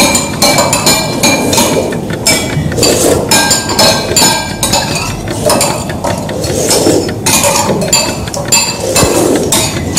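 Cutlery and glassware clinking against plates and glasses at a meal: a steady run of small clinks, several a second, each with a brief ring.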